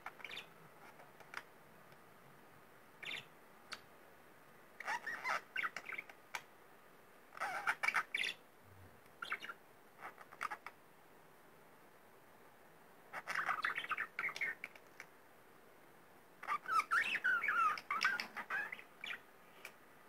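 Grey budgerigar chattering in four bursts of warbling chirps and squawks, the longest near the end, with single short chirps in between.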